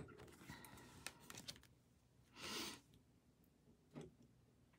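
Near silence with faint handling of tarot cards: a soft sliding rustle of the cards about halfway through and a light tap near the end.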